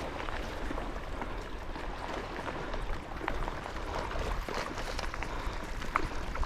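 Water splashing and lapping in small irregular ticks, with wind rumbling on the microphone.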